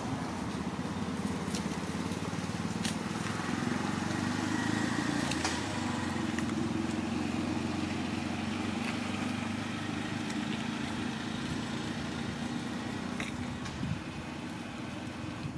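An engine running steadily, loudest a few seconds in and easing off near the end, with a few scattered light clicks.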